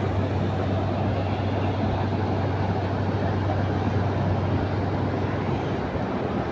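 A steady engine drone with a low hum and a rushing noise over it.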